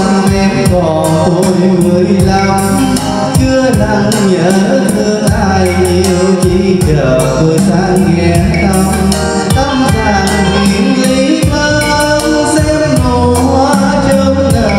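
Karaoke backing music with a steady drum beat and a melody line, played loud through a portable karaoke speaker cabinet with twin 40 cm woofers.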